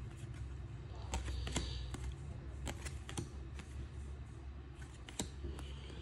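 Topps baseball trading cards being flipped through by hand, each card slid off the front of the stack and tucked behind the others with light, irregular clicks and papery slides.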